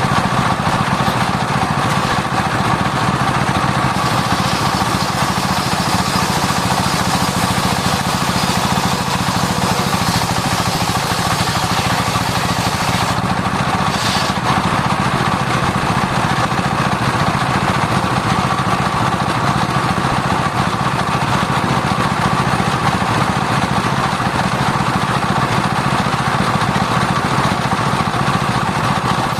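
Circular-blade sawmill running steadily through sengon wood, a continuous mechanical drone with a brief change in the sound about halfway through.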